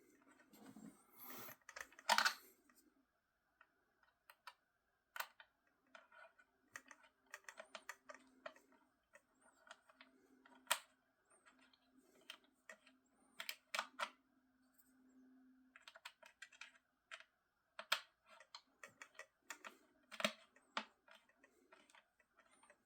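Faint, irregular light clicks and taps of hands and a small screwdriver on a plastic toy RC battle tank as a small screw is driven back into its battery cover.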